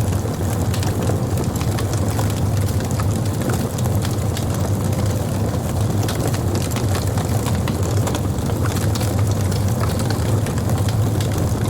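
Wood burning on a campfire: a steady low rumble from the fire with frequent small crackles and pops scattered throughout.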